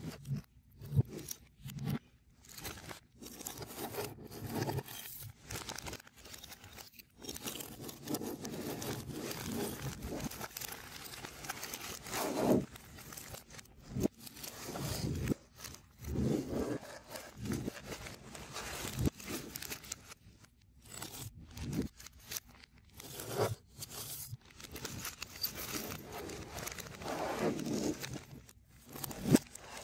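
Hands rummaging in a zip-lock plastic bag of 3D puzzle pieces, the bag crinkling and rustling in irregular bursts, with light clicks and taps as pieces are picked out and set down on a tabletop.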